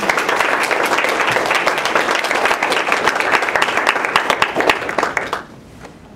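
Audience applauding, many people clapping together, which dies away about five seconds in.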